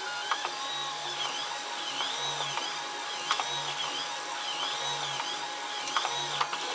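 3D printer's stepper motors whining as the print head travels back and forth, the pitch rising and falling in a regular sweep a bit more than once a second, with a few sharp clicks.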